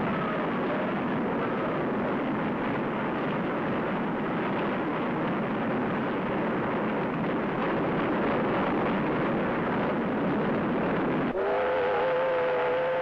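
Steam locomotive running at speed, a loud steady rushing noise. About eleven seconds in, its steam whistle is pulled and sounds one long chord of several steady tones, held through the end.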